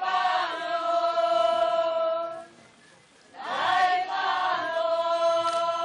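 Women's folk choir singing a Slovak folk song: two phrases, each ending on a long held note, with a short pause for breath between them about two and a half seconds in.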